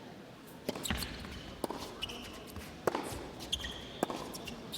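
Tennis rally: the ball struck by racquets and bouncing on the court, a sharp hit about every second, with a couple of short high squeaks in between.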